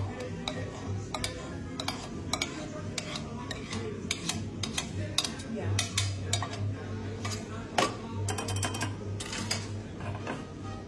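A stainless steel milk jug and glassware clinking and knocking against each other and the metal drip tray, with a run of sharp clinks in the second half, over background music with a steady beat.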